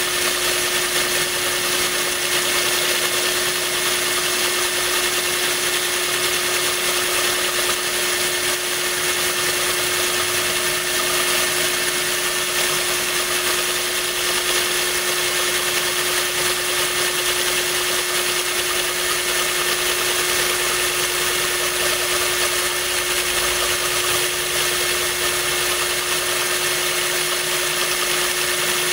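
Power drill running steadily with a hollow bit grinding into a glass bottle, a constant hum under a hiss of grinding and running water that is poured on to cool the cut.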